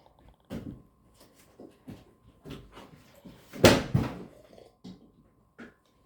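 Scattered light knocks and bumps, with one louder, longer clatter about three and a half seconds in, and a faint steady tone underneath.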